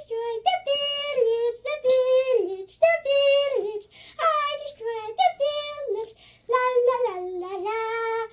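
A child's high voice singing short held notes in about eight phrases with brief pauses between them, each phrase stepping down in pitch.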